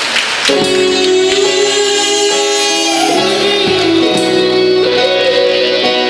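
A live ramwong band starts playing about half a second in: a melodic lead with held notes that slide between pitches, over sustained chords.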